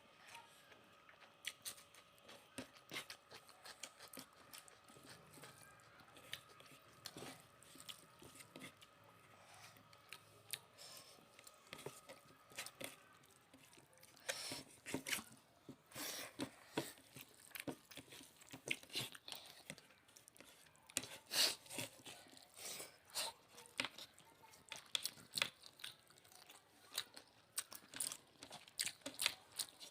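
Close-up eating sounds of rice with chicken and egg curry: chewing, crunching and wet clicks and smacks, quiet at first and busier and louder from about halfway.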